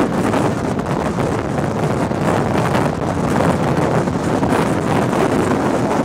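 Strong wind from a tornadic supercell buffeting a vehicle and blowing across the microphone: a loud, steady rush of wind noise that swells and eases slightly with the gusts.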